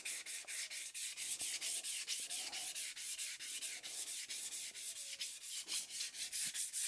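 Hand block-sanding with 320-grit paper on primer putty on motorcycle mudguards: quick, even back-and-forth strokes, about four or five a second, flatting the cured putty before enamel.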